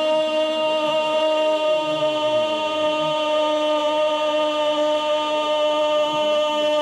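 A football commentator's long drawn-out 'goooool' cry, one shouted vowel held on a steady pitch for several seconds, calling a goal.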